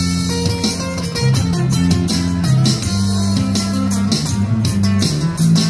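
Amplified street band playing an instrumental passage with no vocals: sustained pitched notes over a bass line and a steady beat.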